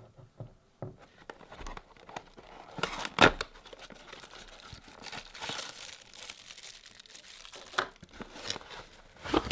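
Packaging being unwrapped by hand: crinkling and tearing with scattered handling clicks, and a sharp louder crackle about three seconds in.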